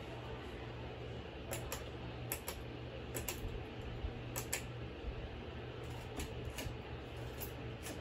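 1981 FASCO Parlourfan ceiling fan running with a steady low motor hum, while its light-kit pull-chain switch is clicked repeatedly, mostly in quick double clicks, turning the lights on and off.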